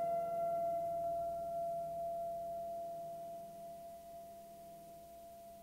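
A single steady ringing tone from an experimental electronic soundtrack, slowly fading away; a fainter higher overtone dies out about two seconds in.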